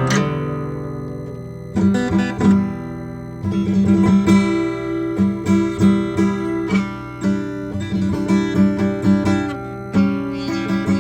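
Acoustic guitar playing: a chord rings out and fades over the first two seconds, then picked notes follow at an even pace.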